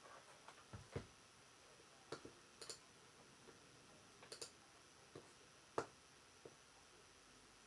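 Faint, irregular clicks and taps of a computer keyboard and mouse, about a dozen spread unevenly, the sharpest click about six seconds in.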